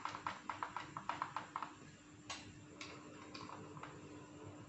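Rapid, even clicking, about seven clicks a second, that stops a little under two seconds in, followed by three single clicks, over a faint steady hum.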